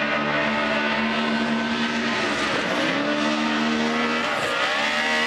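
Two drift cars running hard in tandem, a Ford Mustang leading a Subaru BRZ. The engines are held at high revs with a steady note. The revs dip about two and a half seconds in and again near the end, then climb back.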